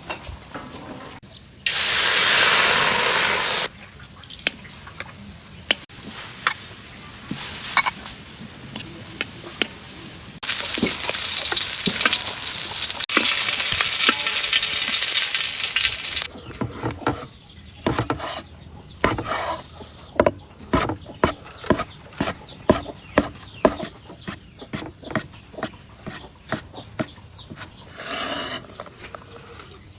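Egg frying in hot oil: loud sizzling in two stretches, one of about two seconds near the start and a longer one of about six seconds mid-way, each cutting in and out abruptly. In the second half comes a run of quick clicks and taps of a utensil against the pan.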